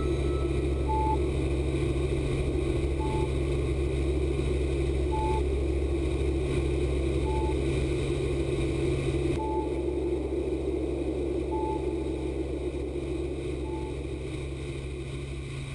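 Helicopter in flight: the steady drone of its engine and rotor, with a short high beep repeating about every two seconds. The drone eases off slightly over the last few seconds.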